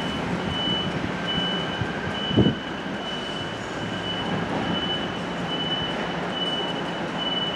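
A KTM electric multiple unit approaching slowly over the station points, with a low steady running hum and one loud knock about two and a half seconds in. A high electronic beep repeats just over once a second throughout.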